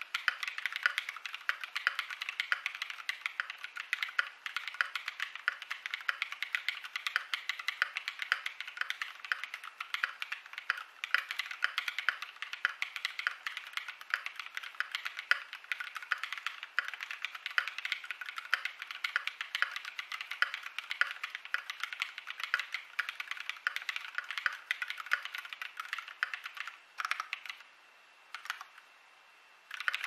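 Fast, continuous typing on a mechanical keyboard, a dense run of overlapping key clacks. About three seconds before the end the typing stops, broken by one short flurry of keystrokes.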